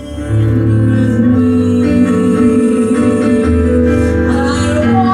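A woman singing a cabaret song into a microphone with instrumental accompaniment, holding long notes. The music swells louder about a third of a second in.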